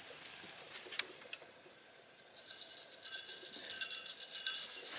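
The door's handle or latch clicks twice about a second in. From about two and a half seconds, the small jingle bells hung on the door ring and shimmer steadily as the door is opened.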